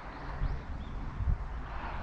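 Outdoor ambience: an uneven low rumble, with a couple of faint, high bird chirps in the first second.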